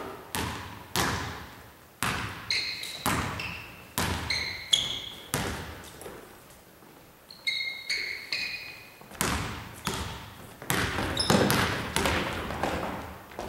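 Basketball being dribbled on a wooden gym floor, its bounces landing about once or twice a second and ringing in the hall, with short high sneaker squeaks in between. The thuds and scuffles come thicker and louder in the last few seconds as the players crowd together.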